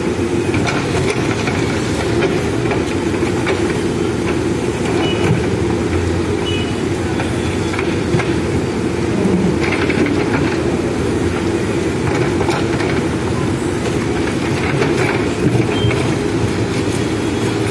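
Diesel engine of a backhoe loader running steadily under load while its backhoe arm digs into broken concrete and rubble, with a few scattered knocks from the bucket.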